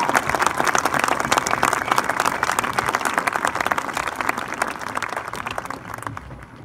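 Crowd applauding, a dense patter of clapping that dies away near the end.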